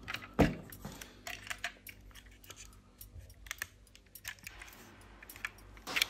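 Diecast model cars being handled: a run of small clicks and taps, with a heavier knock about half a second in.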